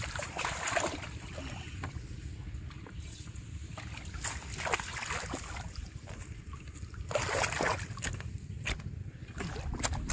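Shallow muddy water splashing and sloshing in a few short bursts as hands move through it, over a steady low wind rumble on the microphone.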